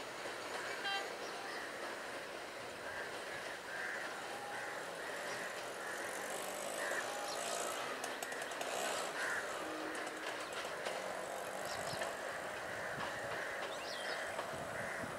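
A train running by, a steady rumble with a regular clack of wheels over rail joints, about two a second.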